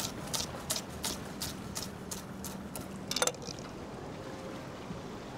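Chef's knife chopping leek finely on a wooden cutting board, a quick even run of about three cuts a second that stops about three seconds in with one louder knock.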